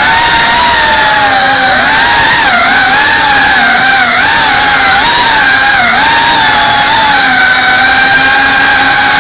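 GEPRC Cinelog 35 cinewhoop's motors and ducted propellers whining in flight, the pitch wavering up and down with throttle changes through the middle and holding steadier near the end.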